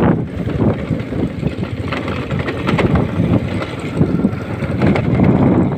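Small motorcycle engine running at low speed while riding over a rough dirt track, heard as an uneven low rumble.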